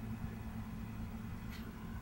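Steady low background hum of room tone, with a faint tick about one and a half seconds in; the planting of the seeds makes no clear sound.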